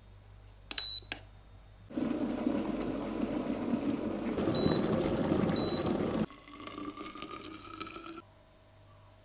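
Water rushing loudly for about four seconds, with two short high beeps in it, then water filling a container with a slowly rising tone that cuts off abruptly. A couple of clicks and a short beep come about a second in.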